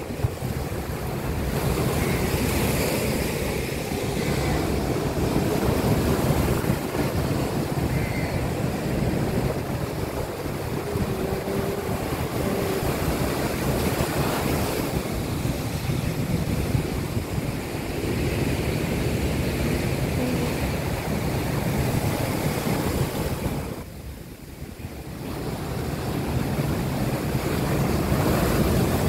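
Rough monsoon sea: breakers crashing and foaming surf washing in over a rock seawall, with wind buffeting the microphone. The surf swells and eases, with a short lull about three-quarters of the way through before it builds again.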